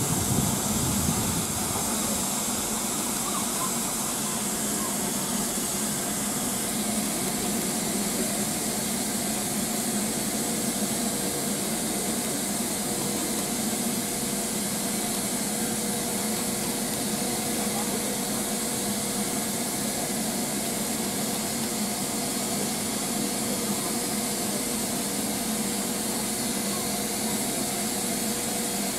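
Standing LMS Stanier Black Five 4-6-0 steam locomotive 44871 letting off steam: a steady, unbroken hiss at an even level.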